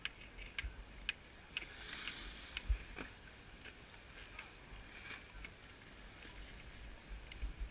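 Faint, irregular sharp clicks and light knocks, a dozen or so, over a low uneven rumble of wind on the microphone.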